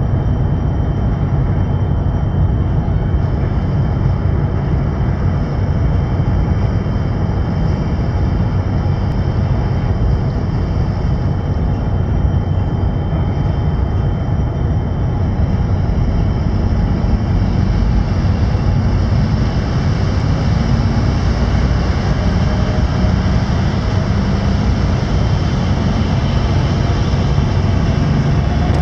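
Pilot boat's engines running with a steady deep drone as it pulls away under power, with a hiss of water wash from its wake building in the second half.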